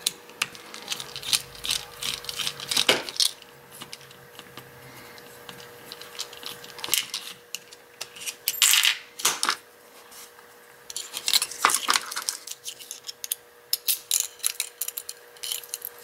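Irregular metallic clicks and taps of a screwdriver and small metal parts as a pin-tumbler lock is unscrewed and taken apart by hand, with a faint steady hum under them.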